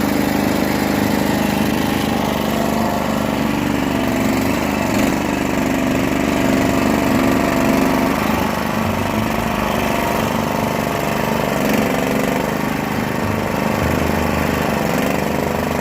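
Small engine of a U-Dig 40 compact backhoe running steadily, with a couple of faint knocks along the way.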